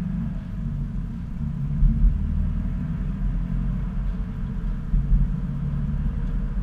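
In-cabin driving noise of a Subaru Impreza with a turbocharged flat-four engine: a steady low rumble of engine and road while cruising, swelling briefly a couple of times.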